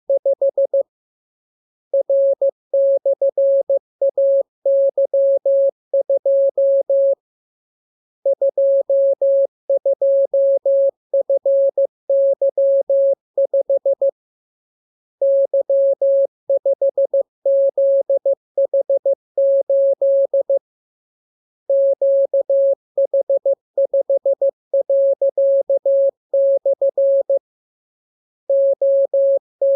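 Morse code (CW) sent as a single steady tone keyed on and off in dots and dashes. It comes in runs of characters about five to six seconds long, separated by pauses of about a second.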